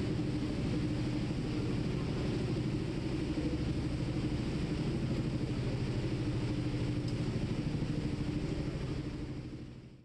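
Passenger ferry's engine running steadily under way, a low drone with a fast even pulse, fading out just before the end.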